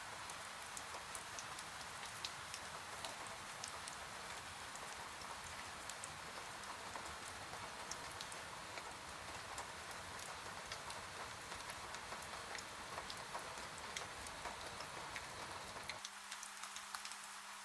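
Rain falling on a window: a steady hiss of rain with many separate drops ticking against the glass. About a second before the end the low rumble thins out, leaving a faint steady hum under the rain.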